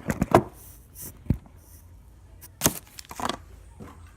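Handling noise close to the microphone: a few scattered knocks and clicks, with brief faint rustling in between.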